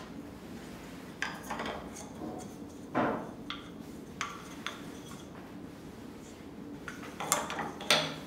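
Walnut strips being picked up, knocked together and set down on a wooden workbench: a scatter of sharp wooden knocks and clacks, with a loud one about three seconds in and two more near the end.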